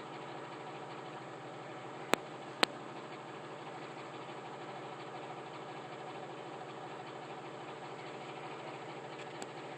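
Two sharp knocks about half a second apart, roughly two seconds in, over a steady mechanical hum; a fainter tick near the end.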